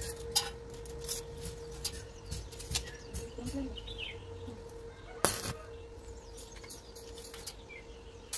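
Light scattered clicks and knocks of steel square tubing being handled, with one sharp knock about five seconds in, over a steady hum.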